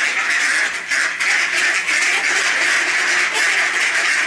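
A large flock of mallards quacking all at once, many calls overlapping into one continuous din.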